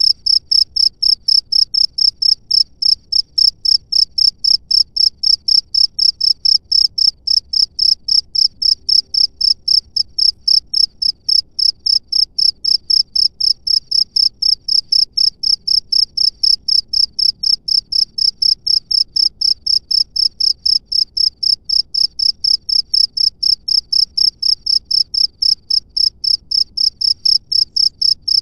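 A single cricket chirping close up, a loud high-pitched note repeated evenly at about three chirps a second without a break.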